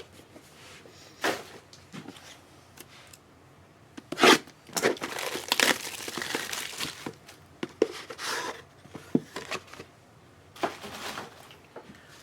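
Plastic wrapping crinkling and tearing in irregular rustling bursts, busiest in the middle, as trading card packaging is handled and opened.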